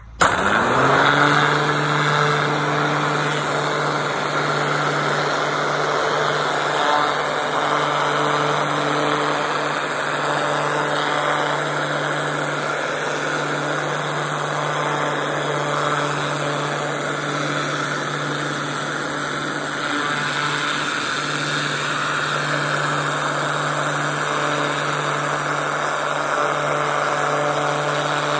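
Pressure washer starting up, its pitch rising over the first second, then running steadily. Its motor and pump hum sits under the hiss of the water jet blasting the fence's kick boards.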